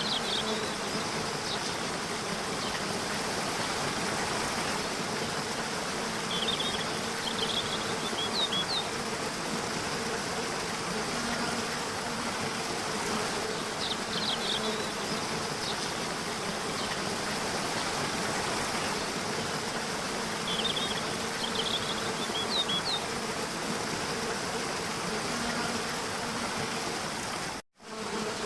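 Waterfall rushing steadily, with a continuous low buzzing drone under it and short high bird chirps coming back in small clusters every several seconds. The sound cuts out for a split second near the end.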